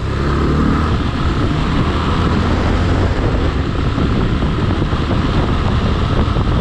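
Steady engine running and wind rumble on the microphone from a vehicle on the move.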